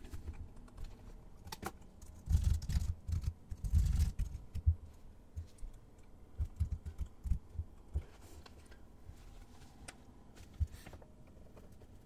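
Typing on a computer keyboard: fast bursts of keystrokes, busiest in the first few seconds and again around the middle, then a few scattered single keystrokes.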